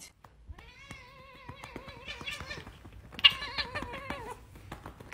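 Tabby cat yowling: a long drawn-out call at a steady pitch starts about a second in, then a louder, higher call follows about three seconds in.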